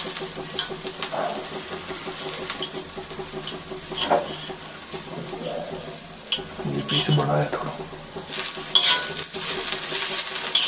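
Sliced onions sizzling in hot ghee in a small kadai, stirred with a kitchen knife whose blade scrapes and clicks against the pan now and then. The onions are being sautéed on a lowered flame until they brown.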